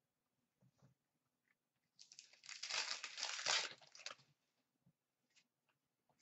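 Foil trading-card pack wrapper crinkling as it is handled, for about two seconds in the middle, with a few faint ticks of cards before and after.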